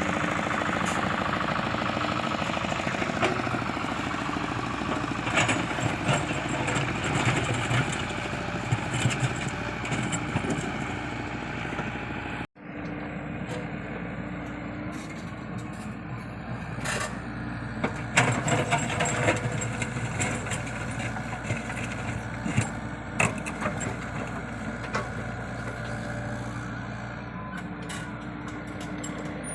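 Komatsu PC75UU mini excavator's diesel engine running steadily at work, with scattered clanks and knocks. The sound drops out for an instant about twelve seconds in.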